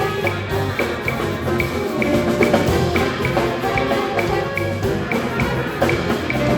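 Instrumental ensemble music with a steady beat, a high percussion tick repeating a little over twice a second over sustained pitched notes.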